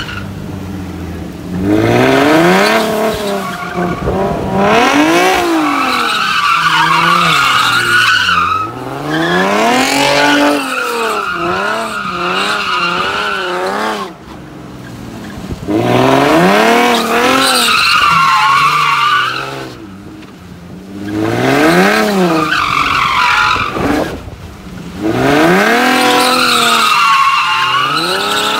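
Infiniti G37's V6 engine revving up and down over and over as the car drifts in circles, its tires squealing in long stretches, with two brief lulls.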